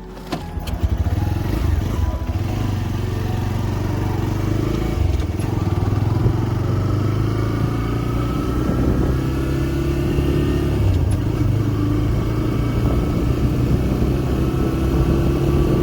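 TVS Raider 125's single-cylinder engine running on the move, cutting in abruptly about half a second in and then holding steady with small rises in pitch.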